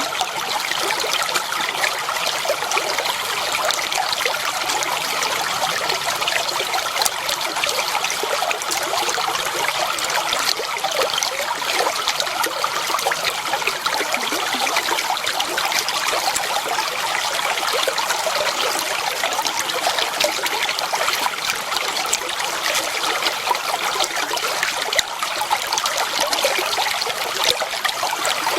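Water flowing and trickling steadily over stones, a continuous babble with many small splashes.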